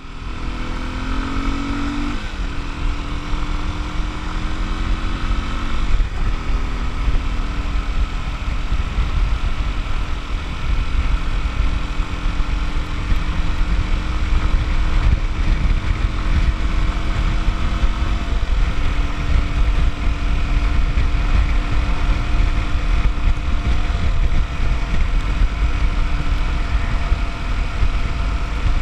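Kawasaki KLX250's single-cylinder four-stroke engine running under way on a ride in the rain, over a steady low rumble. Its pitch rises in the first couple of seconds, then drops in steps about two, six and eighteen seconds in, as from gear changes.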